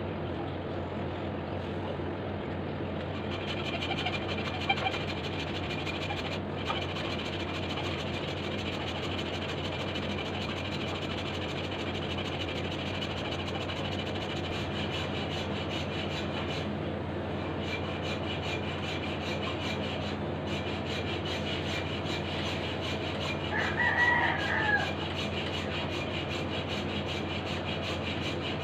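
Hacksaw cutting through a block with steady back-and-forth strokes, a faint rasping that runs on. A rooster crows once, about 24 seconds in, louder than the sawing.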